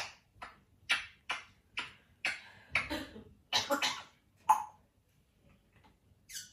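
African grey parrot making a quick string of short, sharp clicking vocal sounds, about a dozen in four and a half seconds, then a pause and one more near the end.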